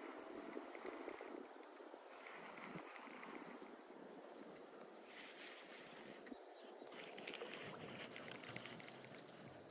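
Faint outdoor ambience with a steady hiss, and a run of faint rapid ticks about seven seconds in.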